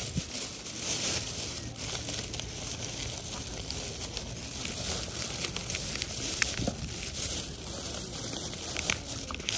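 Plastic food packaging crinkling and rustling as it is handled and opened, with many small crackles.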